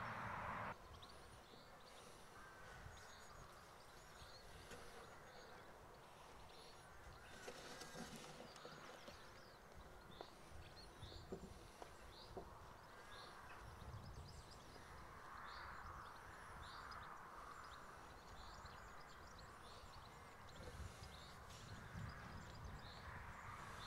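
Faint outdoor country ambience with small birds chirping and singing off and on throughout.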